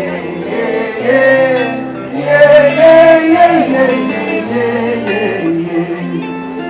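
Live band music with many voices, men's and women's, singing the melody together, the loudest stretch about two seconds in: a crowd singing along.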